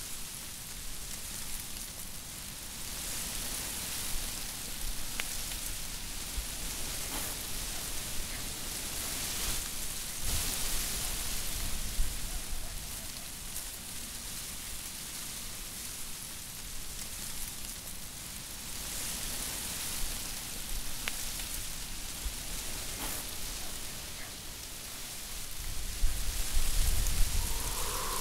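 Wind rustling through a hedge of dry brown leaves, the hiss swelling and fading with the gusts. Near the end a strong gust brings a low rumble of wind on the microphone.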